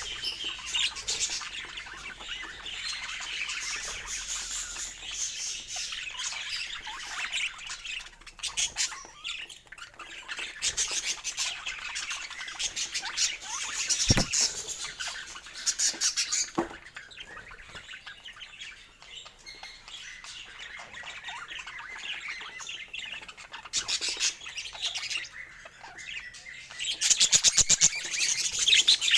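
Budgerigars chattering and chirping continuously, with a sharp tap about halfway through and a louder burst of rapid chirps near the end.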